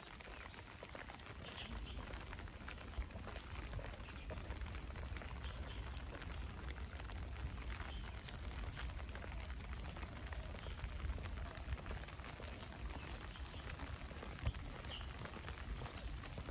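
Steady rain falling on the ground, with many small drop ticks scattered through it over a low steady rumble.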